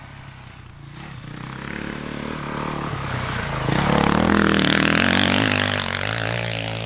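Motocross dirt bike ridden through a corner, its engine growing louder as it comes closer and loudest about four seconds in, the pitch rising and falling with the throttle, then easing off near the end.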